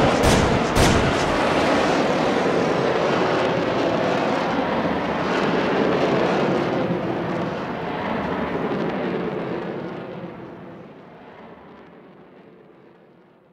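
Two gunshots at the start, then a loud sustained rushing drone with a low engine-like hum that fades away over the last few seconds.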